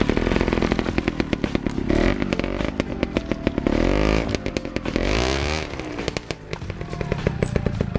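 Two-stroke trials motorcycle engine running at low speed through a rocky section, with repeated throttle blips whose pitch rises and falls several times.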